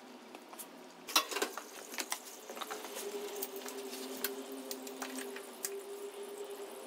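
A series of irregular sharp clicks and knocks, the loudest about a second in, over a steady low hum.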